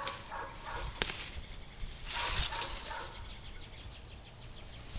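Rustling and handling noises, with a sharp click about a second in and a louder burst of rustling about two seconds in.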